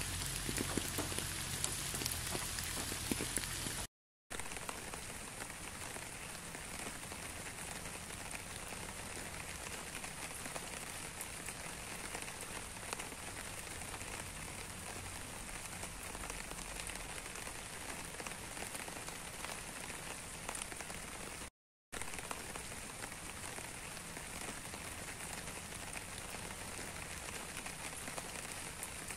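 Steady rain falling and pattering on surfaces, an even hiss of many drops, with a low hum underneath in the first few seconds. The sound cuts out to silence for a moment twice, about four seconds in and again about twenty-two seconds in.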